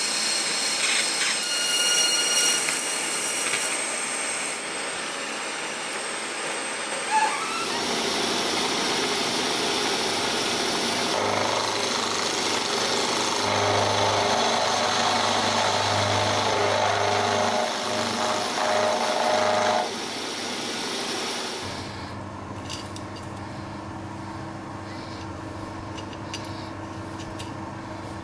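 TIG welding a steel sprocket onto a shaft, the arc hissing and buzzing steadily for the first few seconds. A milling machine then cuts metal on a part held in its vise, a dense grinding machine noise that stops about three-quarters of the way through, leaving a quieter steady machine hum.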